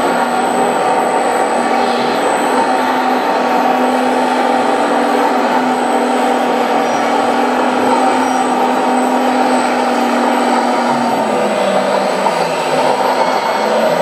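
1/14-scale RC Komatsu D65 bulldozer running, its sound unit giving a steady diesel-engine drone in imitation of the real machine; the engine note drops slightly about eleven seconds in.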